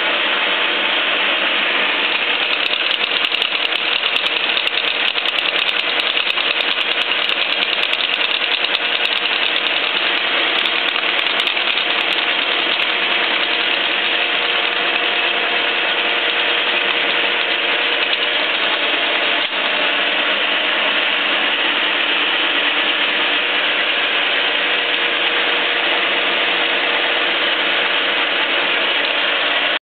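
Biernatzki milling machine running with a Sandvik face mill cutting SAE 1045 steel: a steady, loud mix of machine running noise and cutting noise with a few steady tones underneath. It stops abruptly near the end.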